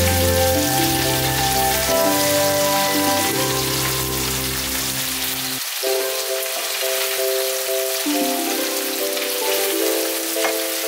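Chicken pieces sizzling and crackling in hot oil in a frying pan as they are turned over with a spatula. Background music with slow held notes plays underneath; its bass drops out about halfway through.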